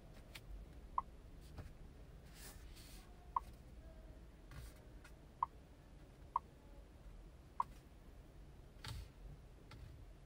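Five short, sharp clicks at uneven intervals over a quiet background, with a brief hiss near the end.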